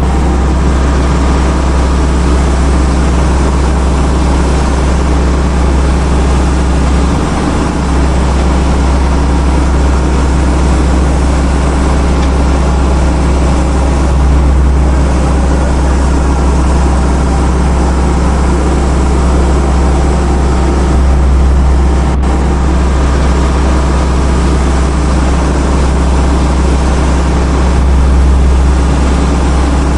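Heavy diesel machinery engine running steadily under load, a loud, even drone with a strong low rumble.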